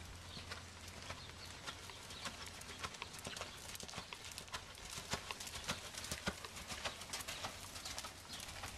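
Hoofbeats of a Selle Français horse trotting on sand arena footing: a run of soft, irregular clicks and thuds.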